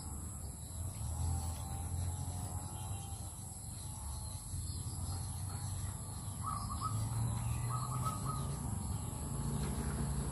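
Outdoor rural ambience with birds calling faintly in the background, including two short bursts of rapid chirping notes in the second half.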